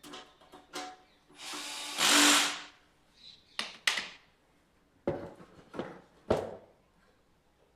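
A small power screwdriver or drill runs once for about a second, driving a screw during a hard-drive fitting in an NVR. Sharp clicks and knocks of metal and plastic parts being handled come before and after it.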